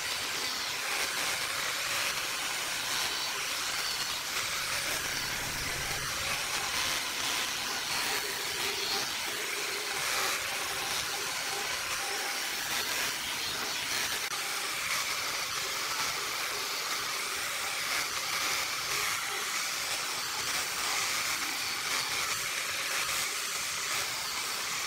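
Angle grinder fitted with a sanding attachment, running steadily and sanding against wood with a continuous hiss.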